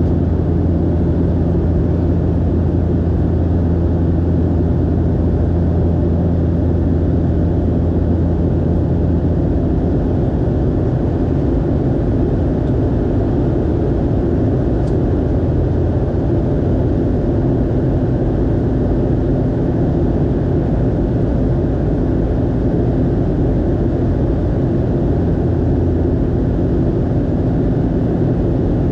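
Steady engine and airflow noise heard inside an airliner cabin, with a low hum that drops away about ten seconds in.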